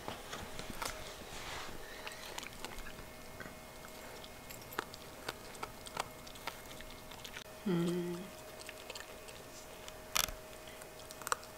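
Miniature schnauzer chewing a broccoli floret: scattered small crunches and clicks of its teeth. About two-thirds of the way through, a brief low hum of a voice is the loudest sound.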